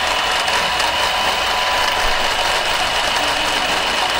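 Electric motors and gear trains of Lionel O scale Thomas and Diesel toy locomotives running steadily while the two engines push against each other on the track: a continuous mechanical whir with a steady high whine.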